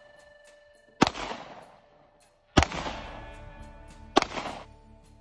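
Three pistol shots, about a second and a half apart, each with a short echo, over background music.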